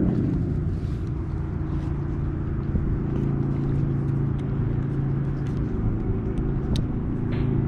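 A steady low engine drone that eases off about six seconds in and comes back near the end, with a faint click or two.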